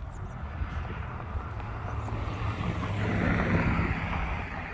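A car driving past: its road noise swells to a peak about three seconds in and then eases off, over a low engine hum.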